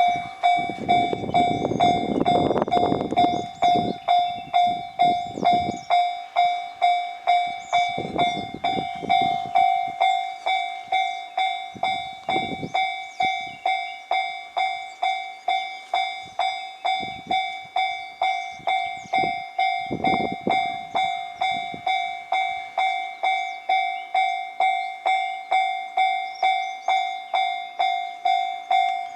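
Japanese railway level-crossing warning bell ringing its "kan-kan" alarm, an even clang a little under two strikes a second, warning that a train is approaching. Brief bursts of low rushing noise come and go beneath it.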